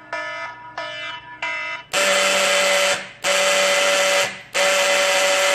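Fire alarm sounding: short pitched beeps, about two a second, then at about two seconds in a louder, harsher pattern of long blasts about a second each with short gaps.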